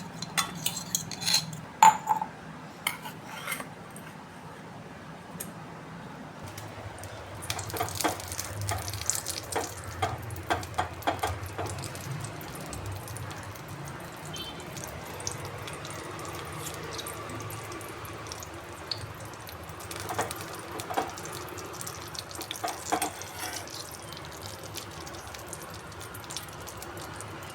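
Metal spoon clinking and scraping against a bowl while candle wax is stirred for remelting. The clinks come in clusters, at the start and again in the middle and later part, over a low steady hum that starts about six seconds in.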